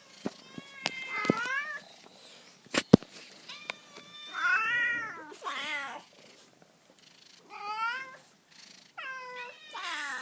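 Feral cats meowing repeatedly, a string of rising-and-falling meows one after another. A few sharp clicks sound in the first three seconds, the loudest a sharp knock about three seconds in.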